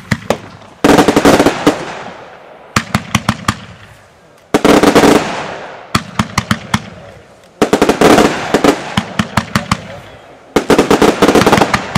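A Supernova fire-pot firework (fountain with shots) firing in repeated cycles. Each cycle is a quick string of sharp cracks followed by a sudden loud rushing gush of sparks that fades over about two seconds, about three times over.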